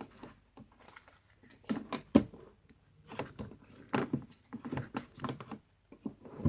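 Small plastic toy-trolley parts being handled and fitted together: scattered light clicks and rattles in clusters, with one sharp click about two seconds in.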